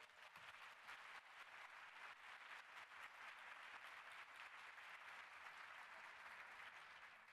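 Audience applauding, faint, a dense patter of many hands clapping that tapers off near the end.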